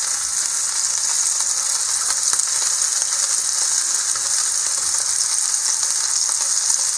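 Raw sausage patties just starting to fry in a nonstick skillet, sizzling in the hot fat: a steady hiss with scattered small crackles.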